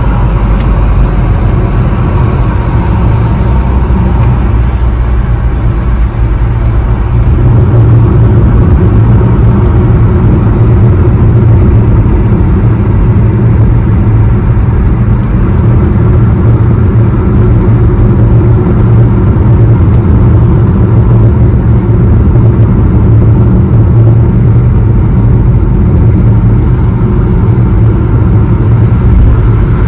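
Steady low rumble of road and engine noise inside a moving car's cabin at highway speed, growing slightly louder about seven seconds in.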